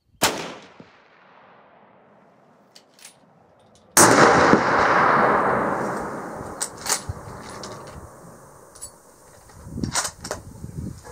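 A Forbes 24B 30-06 rifle fires once a quarter second in, a sharp crack with an echoing tail of about a second. About four seconds in, a much louder sudden rush of noise cuts in and dies away over several seconds. A few sharp cracks follow near the end.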